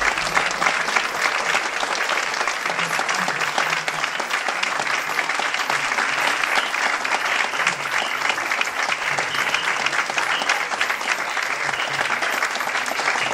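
Seated audience applauding: many hands clapping at once, steady throughout.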